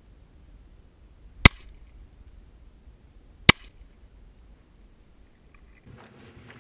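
Two shots from a .40 caliber Glock pistol, about two seconds apart.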